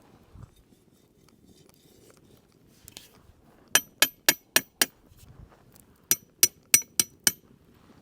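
Sharp, ringing clinks of a hard utensil tapped against cookware: two quick runs of five taps, about four a second, the second run starting about a second after the first ends.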